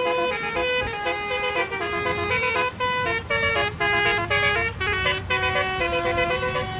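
Basuri telolet musical horn playing a tune of short toots that jump between pitches, often two notes at once, with a few sharp clicks around the middle.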